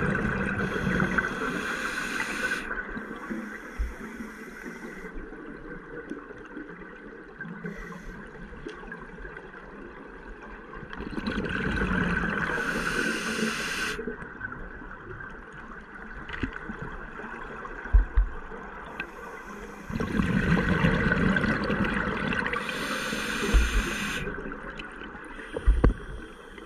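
A scuba diver breathing through a regulator underwater: exhaled bubbles gurgle out in three long bursts of a few seconds each, spaced about eight to nine seconds apart, with quieter hissing between them. A few short low knocks sound in the second half.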